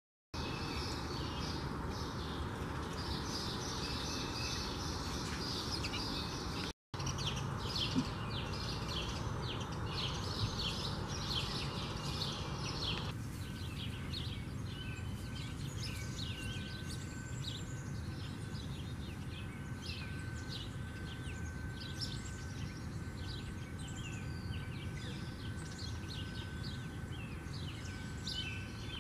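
House sparrows chirping in quick, repeated short notes over a steady low background rumble. A faint steady high tone joins about thirteen seconds in.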